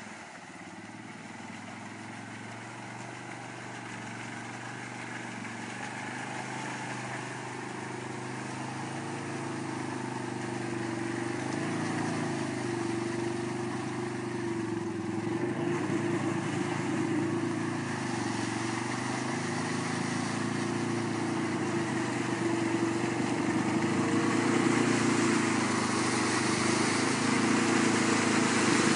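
Arctic Cat 700 H1 ATV's single-cylinder four-stroke engine running and revving up and down as it drives through a mud hole, growing steadily louder as it approaches. Mud and water splash up over the last few seconds.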